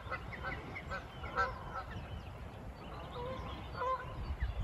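A flock of geese honking in flight: many short, repeated honks from several birds, overlapping at times.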